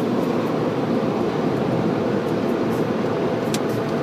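Steady rushing drone of car-wash machinery, heard from inside the car's cabin, with one brief high click about three and a half seconds in.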